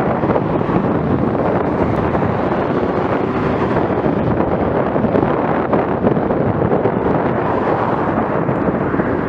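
Loud, steady rush of wind buffeting the microphone of a camera on a moving bicycle, covering any other sound.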